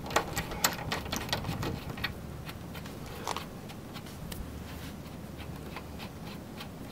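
Lug nuts on a truck wheel being spun off with a socket: a run of quick metallic clicks and clinks, thick for about the first two seconds and then sparse. The nuts were broken free beforehand, so they come off easily.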